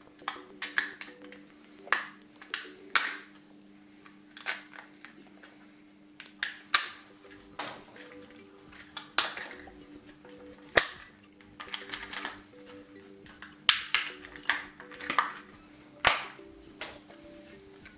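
Stiff clear plastic blister packaging being forced open by hand, giving irregular sharp cracks and snaps, some twenty of them.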